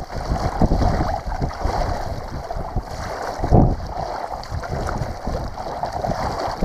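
A person wading through floodwater, the water sloshing and splashing around the legs with each stride, in an uneven rhythm of surges. Wind buffets the microphone underneath.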